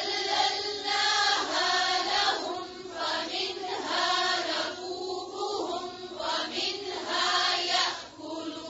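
Melodic vocal chanting with no instruments: voices slide between held notes, in short phrases with brief breaks.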